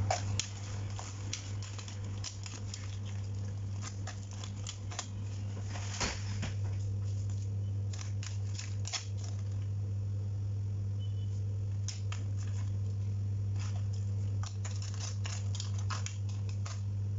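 Metal kitchen tongs clicking and scraping against a wok and crab shells as crabs and shrimp are turned over, in irregular clacks, with a steady low hum underneath.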